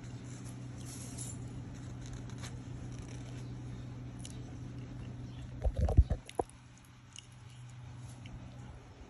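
Steady low hum with scattered faint clicks, and a short cluster of low knocks about six seconds in, the loudest sound.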